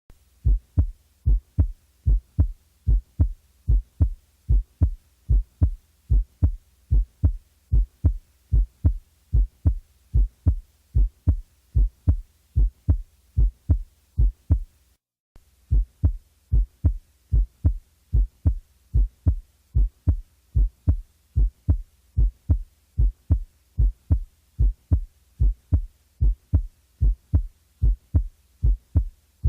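Recorded human heartbeat: a steady rhythm of low thumps, with one short break about halfway through.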